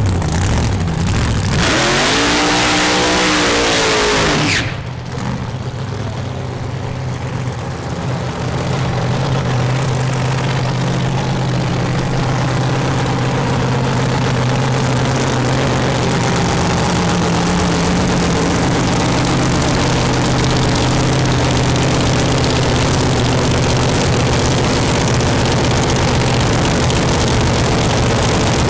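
A supercharged drag car's engine accelerating hard, its pitch rising for about three seconds until it cuts off abruptly. Then another blown drag-car engine idling loud and steady, with one brief rev partway through.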